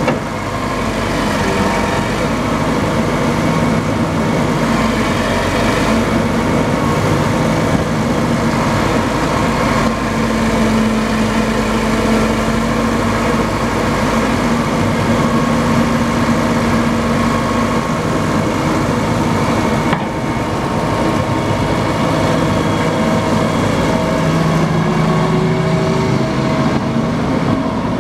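Liebherr 932 30-tonne tracked excavator's diesel engine running steadily while the hydraulics work the boom and bucket. A low steady tone rises out of the engine note twice, for several seconds in the middle and again near the end.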